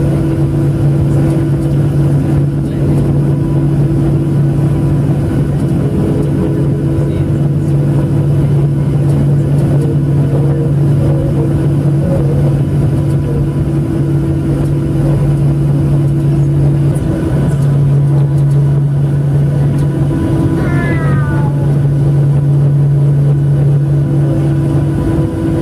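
Boeing 737-700 cabin drone while taxiing, with the CFM56-7B engines at low thrust: a steady, loud low hum that holds level throughout. About three-quarters of the way in comes a brief run of short falling squeaks.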